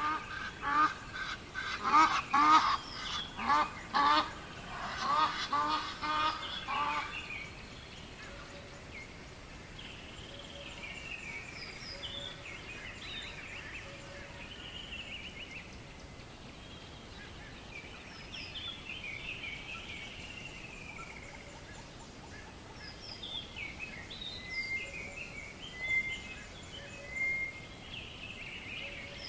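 Riverside dawn ambience: a bird gives loud, repeated calls, several a second, for about the first seven seconds. After that, quieter birdsong comes and goes over a faint steady background, with a few louder calls near the end.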